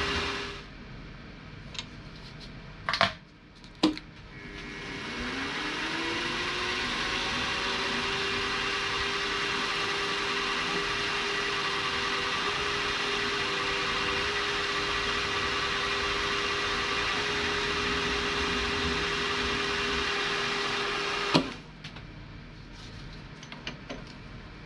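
Bench drilling/milling machine spindle motor spinning up with a rising whine about five seconds in, then running steadily while a drill bit bores a hole in a small metal crank for a model steam engine. It stops abruptly near the end. Two short clicks come shortly before it starts.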